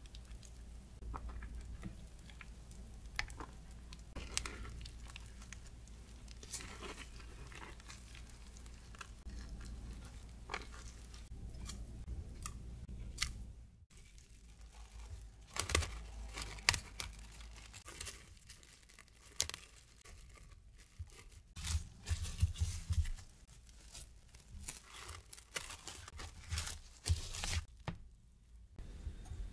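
A silicone spatula scraping and pushing batter through a metal mesh sieve, with soft scrapes and faint ticks. About halfway through, plastic cling wrap crinkles and tears as it is pulled and stretched over a glass jug, in sharp crackles that are the loudest sounds.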